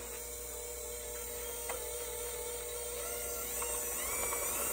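Electric mixer motor starting with a click and running with a steady whine that grows louder, its pitch rising near the end, as it churns a thick sausage mixture that is clumping up on the beater.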